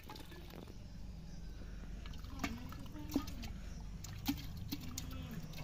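A pot still of mango mash bubbling and trickling over a low steady rumble, with a few light clinks of aluminium as a plate is set inside the top pot.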